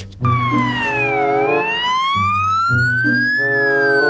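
Ambulance siren wailing: the pitch falls briefly, rises slowly for about two seconds, then falls again.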